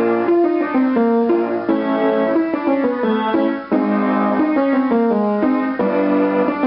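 Piano playing short stepwise warm-up note patterns, with a singer humming along on the 'ng' sound of a vocal warm-up exercise.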